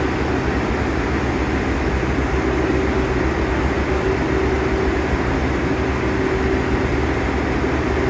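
Steady hum inside an IRT subway car standing at the platform with its doors open: the car's air-conditioning and equipment running, a low rumble with a steady mid-pitched tone over it.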